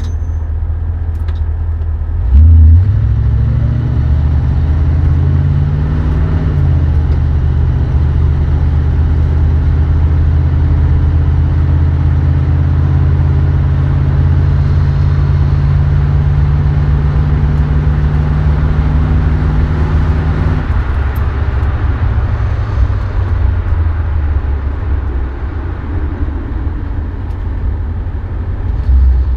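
1973 Dodge Dart's 318 V8 with its 904 automatic transmission running under load, over a steady low rumble. A loud thump comes about two and a half seconds in. The engine note climbs, then drops about six to seven seconds in, holds steady, and eases off about twenty seconds in. The transmission is one the owner says seems to have only two working gears.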